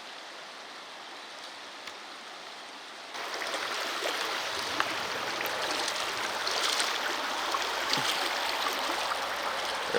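River water rushing steadily over a riffle, growing louder and fuller about three seconds in.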